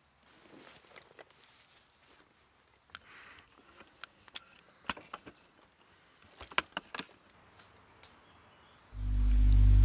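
Scattered crackles and light steps on dry leaves and twigs along a forest path, a few faint clicks at a time, then music starts loudly about nine seconds in.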